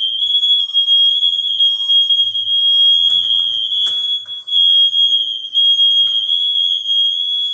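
The apartment's smoke alarms all sound at once in a loud, high-pitched, near-continuous tone, although there is no fire. A few short knocks and clicks come about three and four seconds in.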